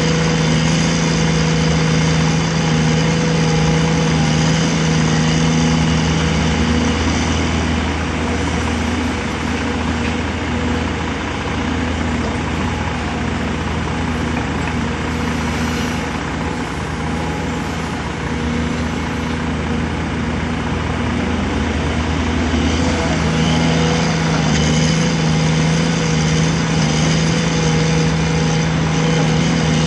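Caterpillar 336 hydraulic excavator's diesel engine running steadily. The hum eases and turns rougher in the middle, then picks back up near the end.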